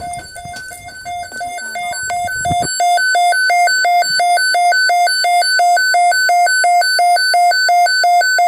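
Weather radio alert alarm: a rapid pulsed beeping tone, about four beeps a second. Some low noise under it stops about three seconds in, and the beeping then runs on louder.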